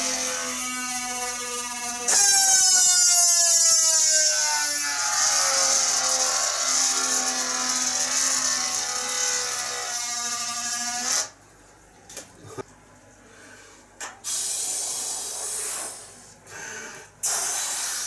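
Long rocket balloon squealing as air rushes out through its neck. The squeal turns louder about two seconds in and slides down in pitch, rises a little again, then stops abruptly about eleven seconds in. It is followed by a few short knocks and bursts of handling noise.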